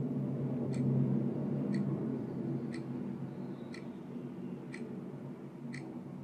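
A sharp clock-like tick once a second, evenly spaced, over a low steady drone that slowly fades.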